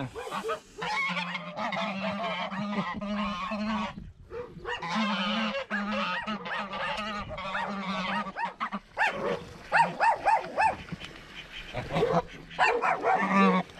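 A flock of white domestic geese honking, a dense run of overlapping calls that breaks in the last few seconds into louder, separate honks; the birds sound agitated, "really angry".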